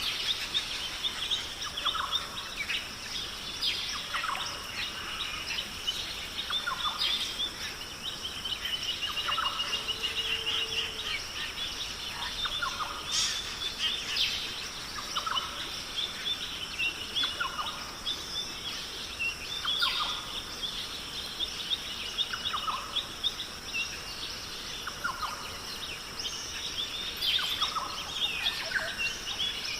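Rainforest bird chorus: many birds calling and chirping together, with one bird repeating a short call about every two and a half seconds, over a steady high-pitched drone.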